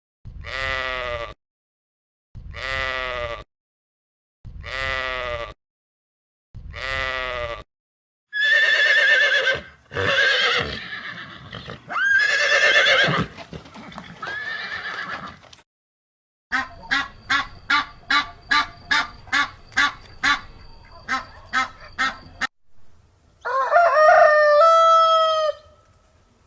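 A series of farm animal calls played one after another. First comes one call repeated four times, about two seconds apart. Then a run of varied calls, then a quick string of short pulses at about two a second, and near the end one long call.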